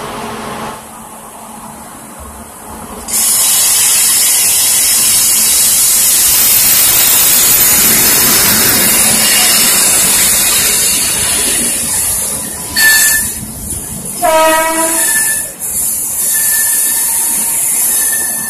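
Duronto Express coaches hauled by a WAP-7 electric locomotive rolling slowly in to stop at a platform. From about three seconds in there is a loud, steady high hiss and squeal from the wheels. A short horn note sounds about fourteen seconds in.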